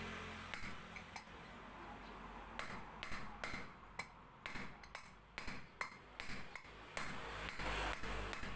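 Hand tools and metal motorcycle parts clinking and knocking as they are handled, a quick, irregular run of sharp metallic clicks that grows busier in the second half.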